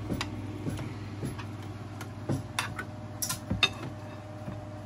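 A metal fork clinking and scraping against a glass baking dish and a ceramic plate as turkey tetrazzini is served: a string of irregular taps and clicks, busiest in the second half, over a steady low hum.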